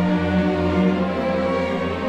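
Orchestral music, strings playing held notes over a low bass line.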